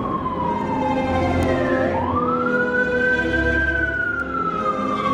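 Emergency vehicle siren wailing: its pitch slides slowly down, climbs quickly back up about two seconds in, holds briefly, then starts falling again. A low rumble runs underneath.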